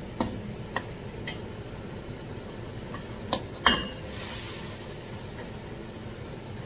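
Metal spatula clinking and scraping against a steel wok while mushrooms in oyster sauce are stir-fried and sizzle. A few light clinks early, two sharper knocks a little past three seconds in, the second the loudest with a short ring, then a brief rush of sizzling.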